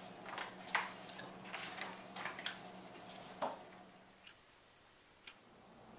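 Pages of a paper booklet being flipped and handled, a run of short, irregular rustles and crackles for the first three and a half seconds. Then near silence with two faint ticks a second apart, a wall clock ticking.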